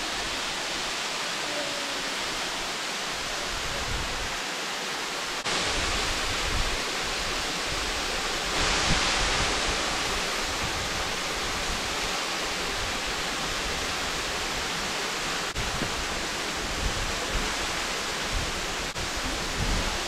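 Steady rushing of a waterfall, a constant hiss of falling water that gets louder about five seconds in and swells briefly around nine seconds.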